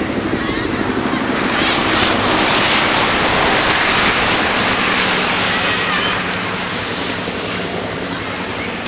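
Many children shouting and playing at a distance, a dense din of voices that swells about two seconds in and eases off after about six seconds.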